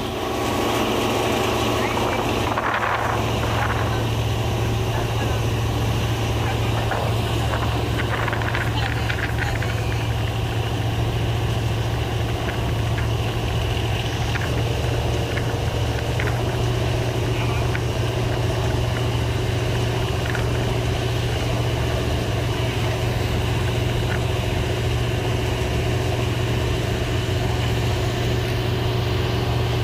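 Bumboat's diesel engine running steadily under way, a constant low drone, with water and wind rushing past the open-sided boat.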